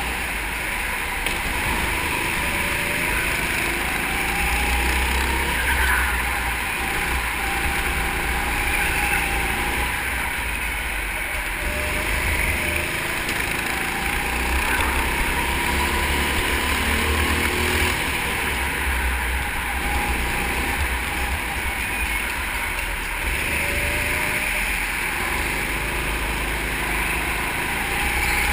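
Go-kart engine running hard on track, its pitch rising and falling again and again as the kart accelerates and slows, over a steady low rumble.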